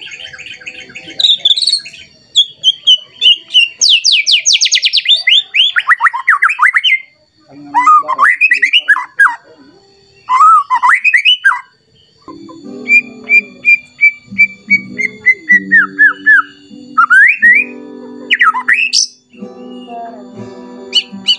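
White-rumped shama singing loudly in varied phrases: fast trills, clear descending whistles and short sharp upswept notes, with brief gaps between bursts. It is the agitated, rival-challenging song that keepers play to provoke other shamas into singing. About halfway through, low steady background tones join underneath.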